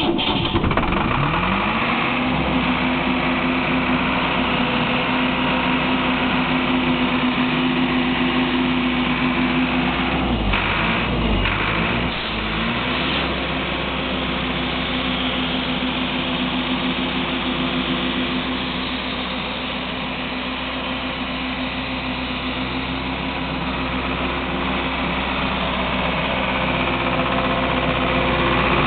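Hydrovane rotary vane air compressor starting up: its motor runs up in pitch over the first second or so, then runs at a steady hum. About ten seconds in the sound wavers briefly and settles slightly quieter, then the compressor keeps running steadily.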